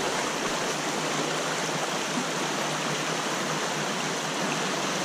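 Small trout stream running, a steady, even rush of water.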